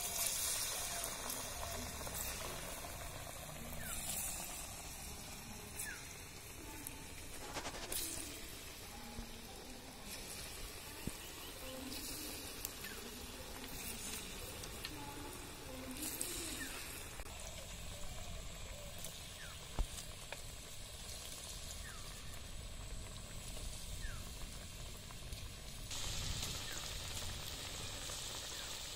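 Palm fruit fritter batter frying in hot soybean oil in an iron karai: a steady sizzle with a few brief louder spatters as dollops of batter are dropped in, growing stronger near the end.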